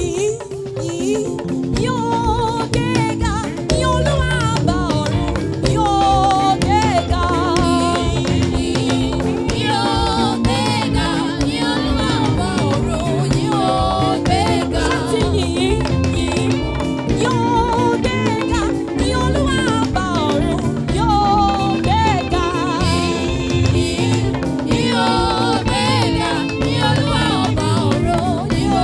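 Gospel praise music: a singer's voice with wide vibrato over instrumental accompaniment with a steady beat.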